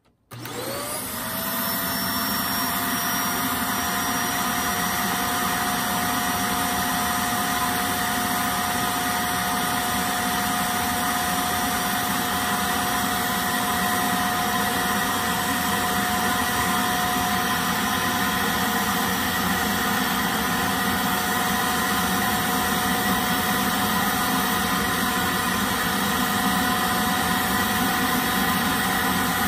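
Vacuum cleaner switched on, its motor whine rising in pitch as it spins up, then running at a steady pitch. It is sucking the air out of a plastic bag of raw alpaca fleece to compress the fleece.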